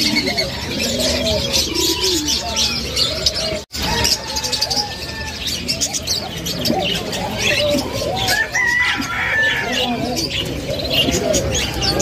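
Many caged birds calling at once: a dense twittering of high chirps over many short, lower, arching calls such as coos. The sound drops out for a split second about a third of the way through.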